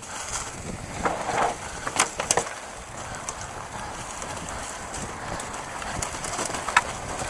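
Mountain bike rolling downhill over dry leaf litter and twigs: tyres crackling and rustling through the leaves, with sharp clicks and knocks of sticks and the bike, the loudest about two seconds in and again near the end.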